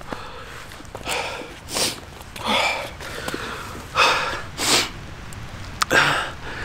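A man breathing hard and out of breath from climbing, with about six heavy, rasping breaths roughly a second apart.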